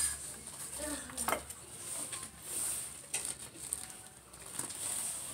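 Dinner-table handling noises: scattered light clicks and soft rustling as lettuce leaves and dishes are handled, with a brief murmur of voice about a second in.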